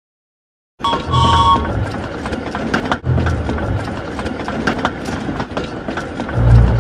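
Steam locomotive sound effect, starting about a second in after a gap of silence: a short whistle toot, then the train running along with clicks of wheels on the rails and recurring low rumbling beats.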